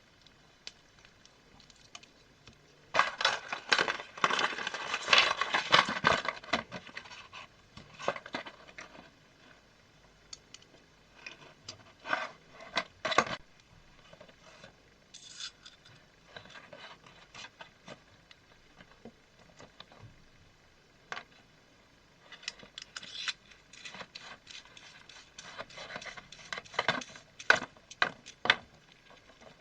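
Small hard objects being handled on a work surface: irregular clicks, clatter and scraping, busiest from about three to seven seconds in and again near the end.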